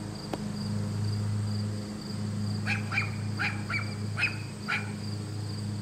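Small yappy dogs barking: a quick run of about eight short, sharp, high barks, starting about two and a half seconds in.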